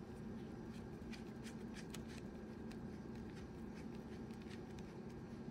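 Faint, scattered light clicks and scrapes of a small screwdriver tip working at a drone battery pack's circuit board and 3D-printed resin shell, over a steady low hum.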